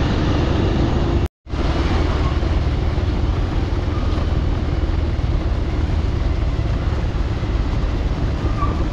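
Motorcycle riding on a rough dirt road: engine and road noise heard from on the bike, steady throughout. About a second in it cuts to silence for an instant where the recording is edited.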